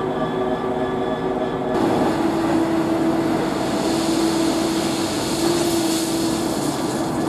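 Diesel engineering machinery running at the trackside with a steady hum. About two seconds in, the sound changes abruptly and more hiss comes in.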